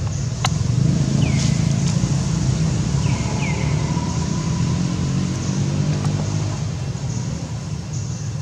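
A motor vehicle's engine rumbles past, swelling about a second in and easing off after about six seconds. Over it come a few short, high chirps that fall in pitch.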